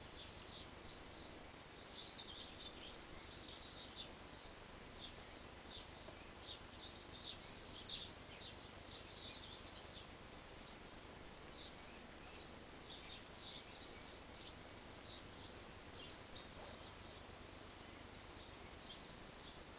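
Faint birdsong: small birds chirping in quick runs of short high notes, scattered throughout and a little louder about eight seconds in, over a faint steady hiss.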